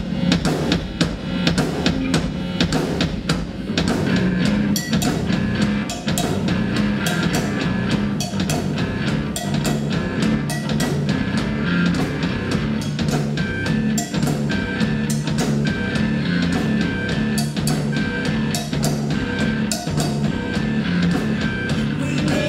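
Live rock band playing an instrumental passage on drum kit, guitar and keyboard, without vocals: a steady beat of bass drum and snare under a low bass line, with a short high riff repeating over it.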